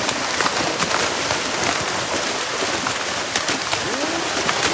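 Dozens of fish thrashing and leaping at the surface inside a drag net being hauled in, a dense, continuous patter of splashes like heavy rain.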